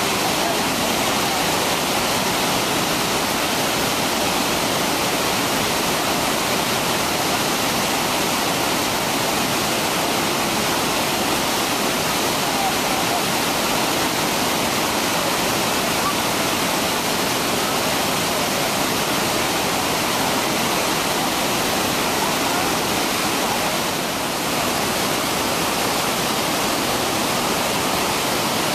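The Devil's Throat (Garganta del Diablo) of Iguazu Falls, a U-shaped chasm of cascades some 82 metres high: a loud, steady roar of falling water, heard from directly above the falls.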